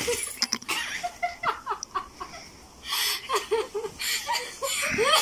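People giggling and laughing in short, breathy bursts while playing on a trampoline, with a few sharp knocks near the start.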